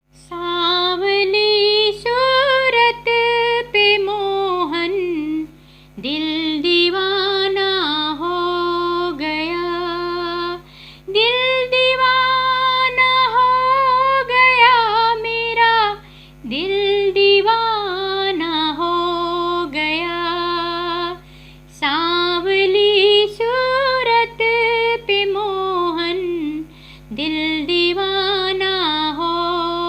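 Devotional ringtone music: a high, ornamented lead melody over a steady low drone, in phrases of about five seconds with short breaks between them.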